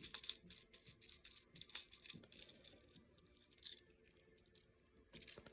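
Quick small clicks and rustles of hands handling lamp cord wire and switch parts. They come thick for the first couple of seconds, then thin out to a few scattered ones.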